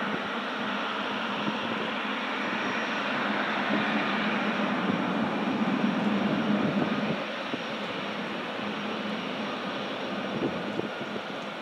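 Jet engine noise from a Boeing 777-300ER's GE90 turbofans as the airliner rolls on the runway: a steady rumble that grows louder for a few seconds in the middle, then eases.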